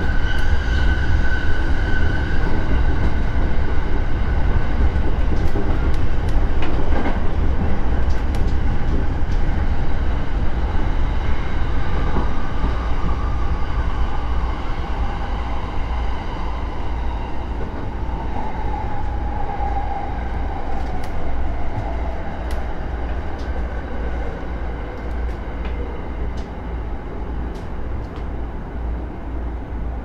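Electric commuter train running, heard from inside the driver's cab: a steady low rumble of wheels on rails with a motor whine that falls in pitch from about twelve seconds in as the train slows for a station, the whole sound growing quieter. A few faint ticks come near the end.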